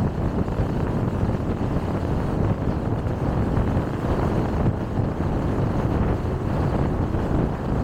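Steady road noise of a car driving at speed: an even rumble of tyres and wind with no distinct events.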